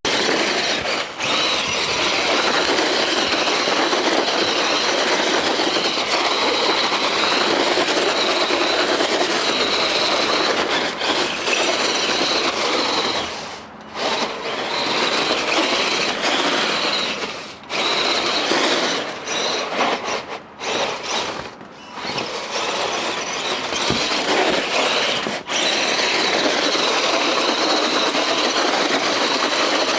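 Electric motor and geared drivetrain of an Axial SCX10 Deadbolt RC crawler whining steadily as it drives over rough ground. It drops out briefly a few times in the middle, then runs on steadily.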